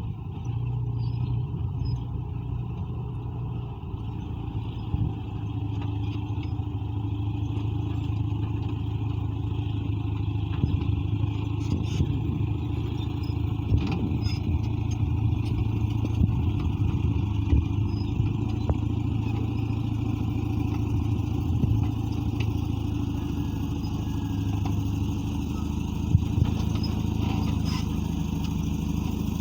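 Caterpillar D8 bulldozer's diesel engine running steadily under work, with a few sharp clanks along the way.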